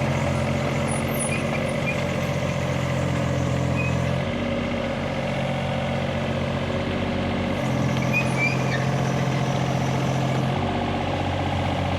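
Hitachi mini excavator's diesel engine running steadily, its note shifting between two settings every three to four seconds as the machine works.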